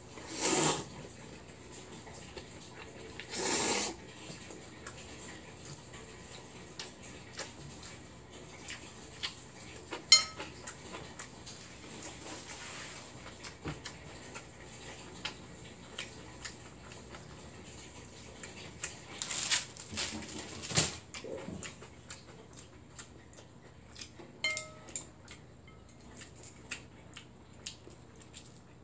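A person slurping up mouthfuls of bibim-myeon noodles twice near the start. Chopsticks click and scrape against a ceramic bowl throughout, with one sharp loud clink about ten seconds in and two more noisy bursts around twenty seconds in.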